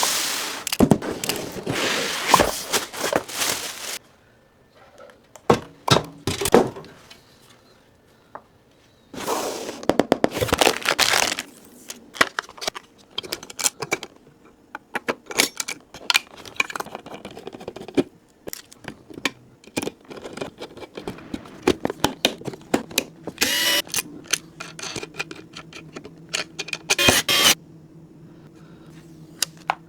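Computer parts and hand tools being handled during a PC assembly: a run of sharp clicks, knocks and scrapes, with a few longer noisy stretches of a few seconds each, and a faint steady hum in the last third.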